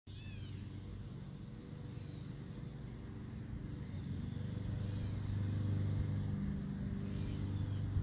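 Insects trilling steadily in one high tone, with a few short chirps over it and a low hum that grows louder through the second half.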